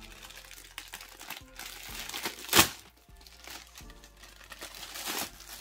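A clear plastic bag crinkling and crackling as a packaged mesh pouch is unwrapped, with one loud sharp crackle about halfway through.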